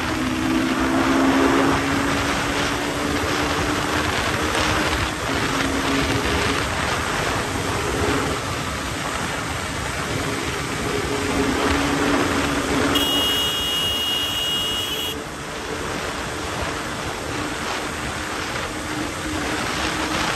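KTM RC single-cylinder engine running at a steady cruise, with heavy wind rush over the microphone. About two-thirds of the way through, a steady high-pitched beep sounds for about two seconds.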